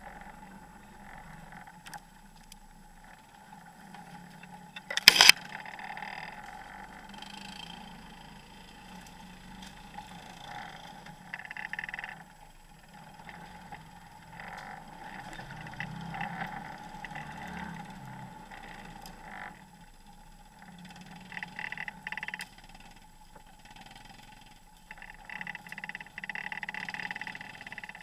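Off-road vehicle running slowly over a rough trail, its engine hum steady under irregular rattles and bumps, with one sharp loud knock about five seconds in.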